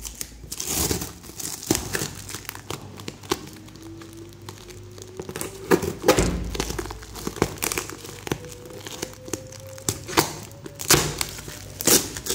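Clear plastic packing tape being pulled and torn off a cardboard shipping box by hand, in irregular crinkling crackles and rips.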